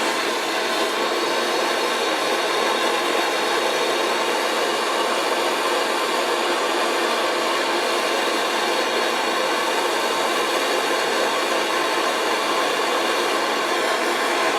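A heating tool blowing a steady, unchanging rush, heating a seized fitting on an old boiler to free it.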